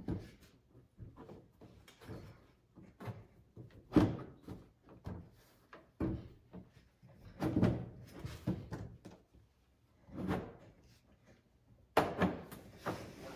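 Irregular knocks, bumps and rattles of a clear rear window panel being handled and fitted against a UTV's roll cage, with the sharpest knock about four seconds in.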